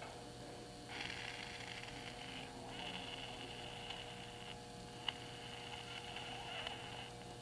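Faint hiss in three spells as the ruptured rubber bladder of a Mercedes SBC brake accumulator is squeezed by hand, air escaping through a small hole in it, with one sharp click about five seconds in. A steady electrical hum runs underneath.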